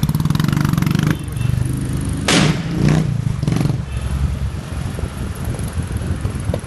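Royal Enfield Thunderbird's single-cylinder engine with a custom exhaust, revved hard with rapid, even firing beats. About two seconds in comes one loud rasping blast from the exhaust, then a couple of smaller ones. After that the engine drops to a lower rumble as the bike rides off.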